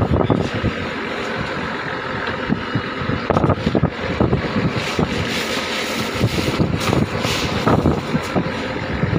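A fishing boat's engine running steadily under a wash of noise, with irregular knocks and clatter from hands and a bowl working in the iced fish hold.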